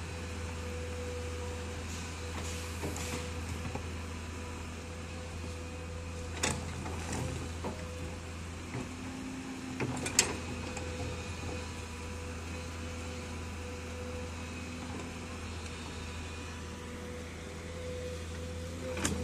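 Komatsu crawler excavator's diesel engine running steadily with a low hum while the machine digs rocky soil. Sharp knocks from the bucket striking stones come about six and ten seconds in, and again near the end.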